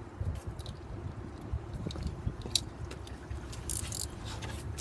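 Engine oil draining in a thin stream from the oil pan's drain hole into a drain pan, with scattered small clicks and a brief rustle near the end.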